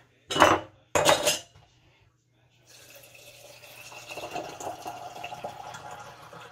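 Two sharp clinks of a stainless steel canning funnel being set onto a glass mason jar, about half a second and a second in. Then, from about two and a half seconds in, water poured from a kettle through the funnel into a jar of dry beans, a steady trickling fill.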